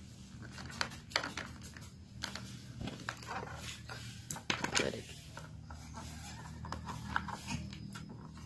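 Folding stock of a spring airsoft KAC PDW replica being unfolded and handled: a string of irregular clicks, knocks and rubbing as the stock parts are swung and moved, busiest about four and a half seconds in. A steady low hum runs underneath.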